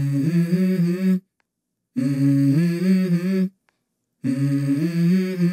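Intro music: a voice humming a short melody in three phrases, each stepping upward in pitch, with dead silence between the phrases.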